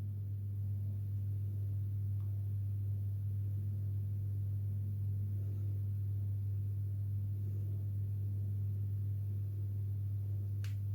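A steady low hum, with a single faint click near the end.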